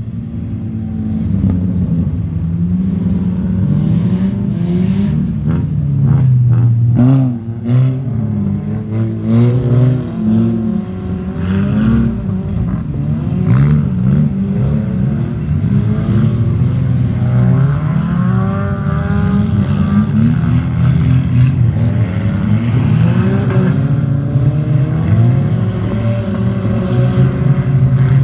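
Several front-wheel-drive ice race car engines running hard at once, their pitch rising and falling over and over as they rev.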